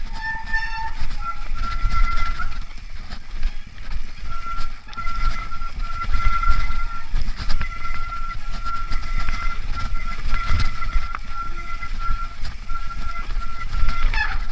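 Mountain bike descending a rough trail: its brakes squeal in a steady high tone, breaking off and coming back again and again, over the rattle of the bike and a heavy rumble of wind on the camera microphone.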